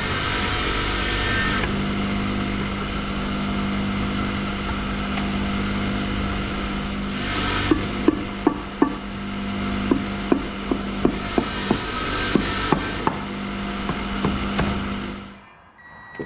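About a dozen sharp taps of a green plastic mallet on a Yamaha four-stroke outboard's crankcase during reassembly, coming in small groups, over a steady hum that cuts off near the end.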